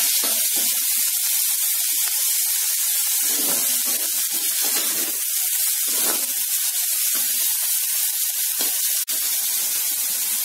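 Chopped orange peel and chillies sizzling steadily in hot oil in a kadai, with the ladle scraping through them every second or two as they are stirred and sautéed.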